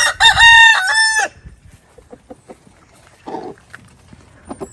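Rooster crowing once, loud, for just over a second, then faint scattered ticks.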